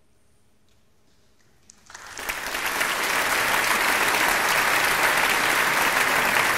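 About two seconds of near silence, then a few first claps and audience applause that quickly builds to steady, full clapping as the choral piece ends.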